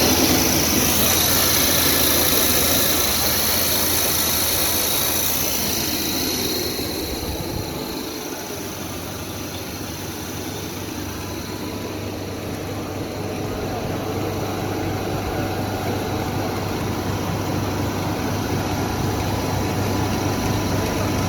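Snack-food extrusion line machinery running: a steady motor hum with mechanical noise and hiss. It gets quieter about six seconds in and builds back up over the last half.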